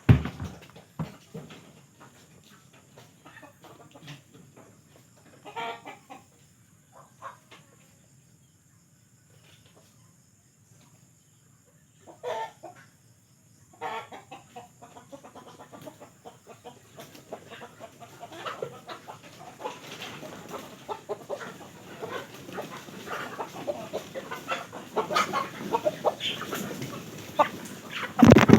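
Chickens clucking, a few scattered calls at first, then busier and louder calling through the second half. A sharp thump right at the start and another near the end.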